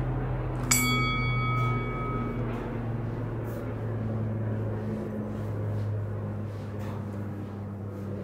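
A single bell-like metallic ding about a second in, ringing out briefly with several clear overtones, over a steady low hum.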